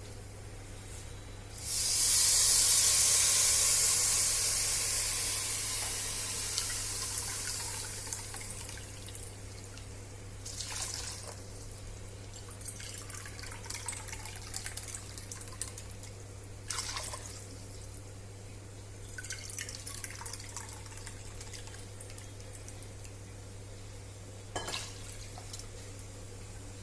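Water poured into the hot pressure cooker over rice fried in coconut oil: a loud hiss that starts suddenly and fades over several seconds. Short scraping and clinking bursts follow now and then.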